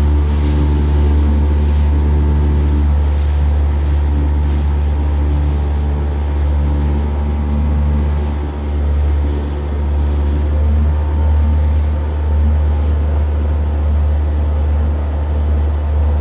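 Motorboat engine running steadily while the boat is underway, with wind noise on the microphone.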